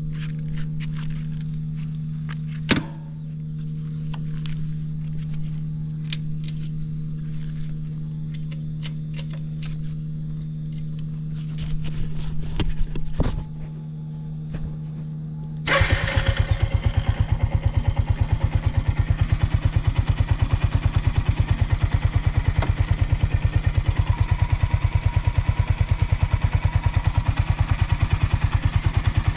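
A steady hum with a few clicks and knocks, then about two-thirds of the way in a Suzuki Volty's single-cylinder engine starts and settles into a rapid, even idle. The seller takes the engine for very quiet, with no abnormal noises.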